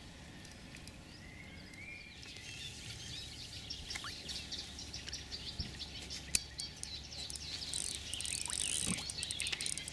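Birds chirping and singing, with scattered small clicks, over a low steady outdoor hiss.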